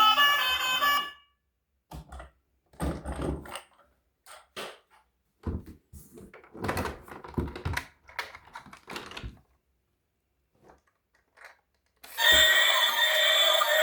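Irregular thunks and clicks of toys and their packaging being handled, in a small room. Background music stops about a second in and comes back near the end.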